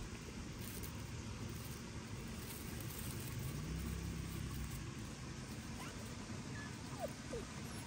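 Low rumble of distant motor traffic, with an engine hum swelling about three and a half seconds in and fading a second later. A few faint short high chirps near the end.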